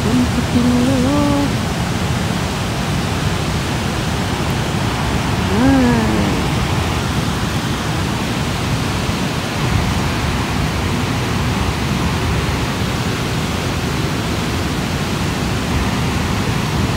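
High river water pouring over a dam's gates and churning in the foaming pool below: a loud, steady rush of water.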